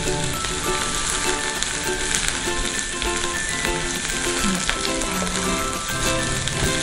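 Sliced green chilies, shallots, garlic, ginger and galangal sizzling steadily in hot oil in a pan as they are stir-fried with a silicone spatula, over light background music with a repeating melody.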